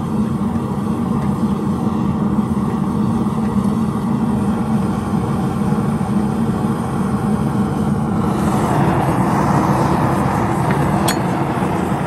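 Gas forge burner running with a steady roar of burning gas. The noise grows brighter and a little louder about 8 seconds in.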